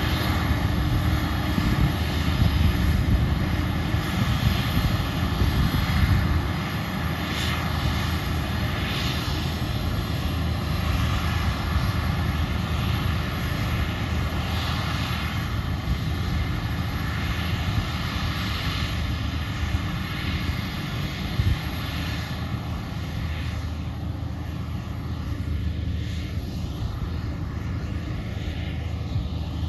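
Steady drone of a Claas Jaguar 960 forage harvester and the tractor alongside it, chopping maize some distance off, mixed with wind rumbling on the microphone. The sound eases slightly about six seconds in.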